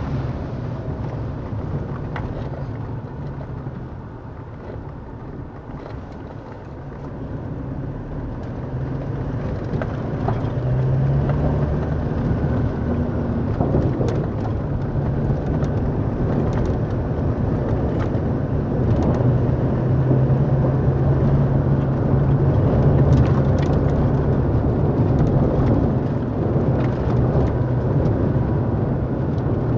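Engine of an underground mine vehicle running as it drives through a rock tunnel: a steady low drone with rattling and occasional sharp knocks. It eases off a few seconds in, then grows louder from about ten seconds in.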